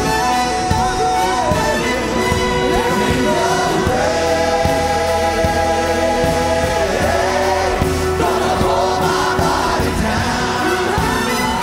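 Live gospel worship music: a male lead singer sings into a microphone over a full band, with a choir behind.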